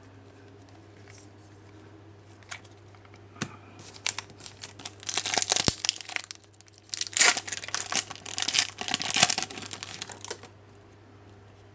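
Foil trading-card pack wrapper being torn and crinkled, in bouts of crackling that start about four seconds in, pause briefly, and stop shortly before the end.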